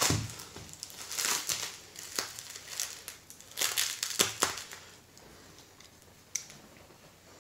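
Bubble-wrap packaging crinkling in bursts as it is cut with a knife and pulled open, busiest in the first four and a half seconds and then quieter. A single sharp click comes near the end.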